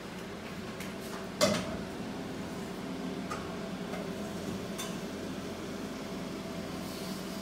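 Kitchenware clatter: one sharp ringing clank of a pan or dish about a second and a half in, followed by a few faint clicks, over a steady background hum.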